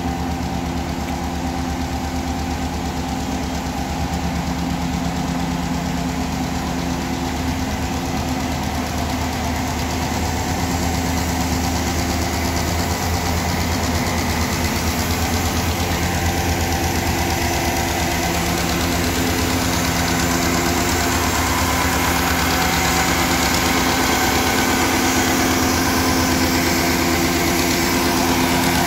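Diesel engine of a truck-mounted bitumen distributor running steadily at low speed while it sprays tack coat, growing gradually louder as the truck draws closer.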